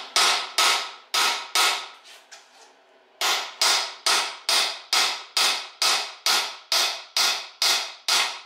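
Hammer striking an aluminum bearing driver, tapping a pinion bearing race down into a GM 8.2-inch 10-bolt rear axle housing. There are four blows, a pause of about a second and a half, then a steady run of blows a little under three a second.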